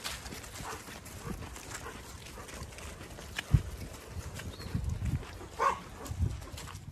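Footsteps and rustling through grass with handling thumps from a hand-held phone, the sharpest thump about halfway through, and a short animal call near the end.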